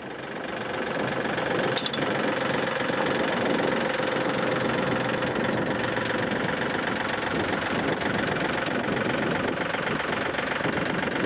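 John Deere compact utility tractor's diesel engine running steadily as the tractor backs off a drive-over mower deck, fading in over the first second. A light click sounds about two seconds in.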